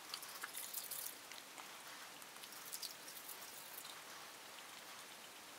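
Faint wet clicking and scratching of a toothbrush rubbed over a dog's teeth while the dog licks and chews at the bristles, with the clicks thickest in the first second.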